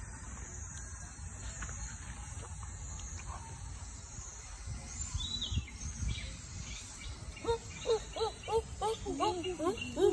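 Steady high-pitched chirring of insects in grass. From about three-quarters of the way in, a quick run of short rising-and-falling voice-like calls joins it and gets louder.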